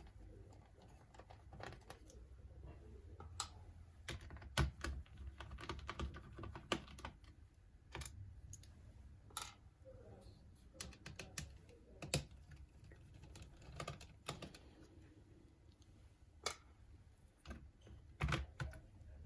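Faint, irregular small clicks and taps of a precision screwdriver and tiny screws as screws are taken out of a laptop motherboard and the parts are handled.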